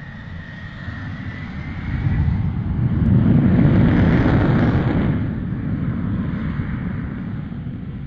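Jet fighter engines at full power, as in a carrier catapult launch of an F-14 Tomcat. A high turbine whine over a rumble gives way to a loud roar that peaks about three to five seconds in, then fades away.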